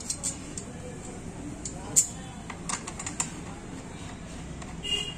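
Scattered light clicks and taps from a steel mounting bracket and the plastic housing of an LED slim par light being handled and fitted together, with one louder knock about two seconds in.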